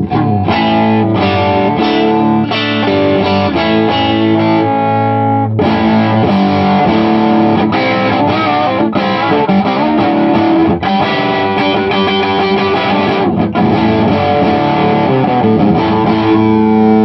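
Electric guitar played through a modified Bell & Howell Filmosound tube amplifier with its Super Lead control turned up, giving a distorted tone: a mix of ringing chords and quicker single-note runs, with a few brief breaks between phrases.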